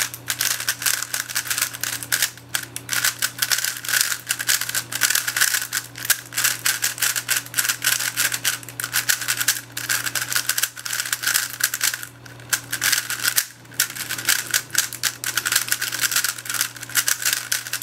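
Gans 356 56 mm 3x3 speedcube (primary standard version) being turned fast in its first turns out of the box: rapid plastic clicking and clattering of the layers, with a short pause about two-thirds of the way through.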